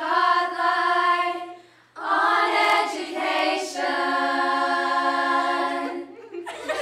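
Middle-school girls' chorus singing unaccompanied: a sung phrase, a short break about two seconds in, then long held notes that end near the end.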